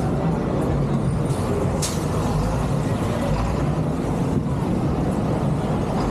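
City street traffic with a double-decker bus passing close, a steady low rumble, and a short sharp hiss about two seconds in.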